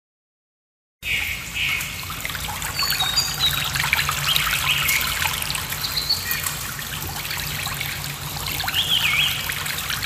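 After about a second of silence, a trickling stream of water starts with small birds chirping over it, and a steady low hum runs underneath.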